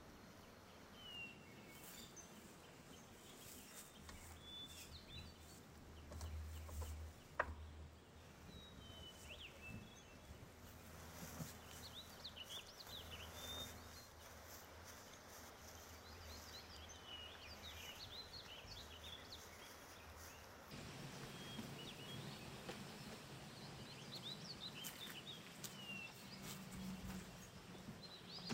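Faint outdoor ambience: small birds chirping in short, scattered calls over a low steady rumble, with a single sharp click about seven seconds in.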